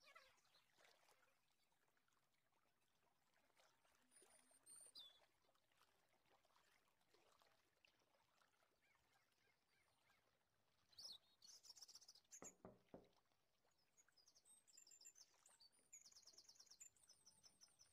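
Near silence, with faint high bird-like chirps and trills a few times, and a soft knock about twelve seconds in.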